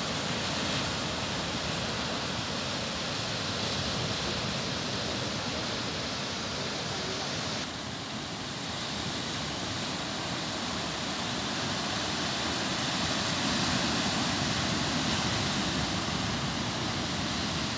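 Sea surf breaking and washing over rocks along the shore: a steady, continuous rush of water, slightly louder past the middle.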